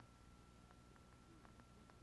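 Near silence, with a faint steady high-pitched whine and a few soft, scattered ticks.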